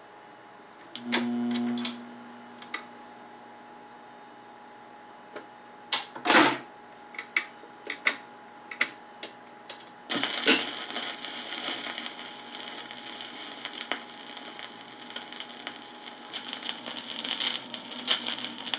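Vintage BSR automatic turntable starting up: a brief hum about a second in, then a run of mechanical clicks and clunks as the changer mechanism cycles and swings the tonearm over. A thump about ten seconds in as the stylus sets down, followed by steady crackly record surface noise from the lead-in groove.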